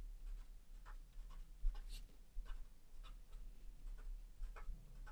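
Faint, short scratchy strokes of a paper blending stump rubbing graphite shading onto a small paper tile, with one light tap right at the start.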